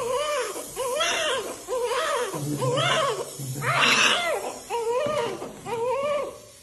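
Newborn baby crying: a string of short wails, each rising and falling in pitch, about one a second.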